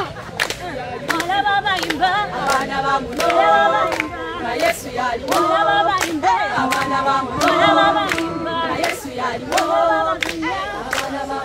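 Church congregation singing together, with a steady beat of sharp strokes about twice a second.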